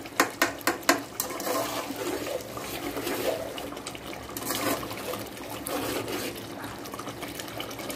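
Steel ladle stirring a thick, bubbling meat-and-masala gravy in an aluminium pot, knocking against the pot several times in the first second, then wet stirring and bubbling as the masala is fried down.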